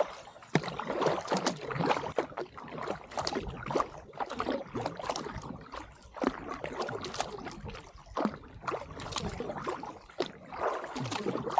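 Kayak paddle strokes: the blades dip and splash into the water about once a second, with trickling and dripping water between strokes.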